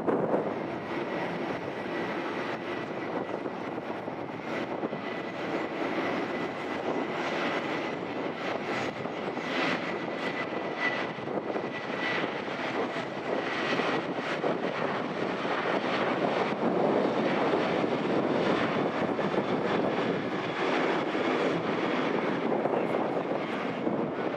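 Boeing 737-800 jet airliner with its CFM56-7B turbofan engines, a steady rushing jet noise with a faint high whine over it through the first half. It grows somewhat louder in the second half.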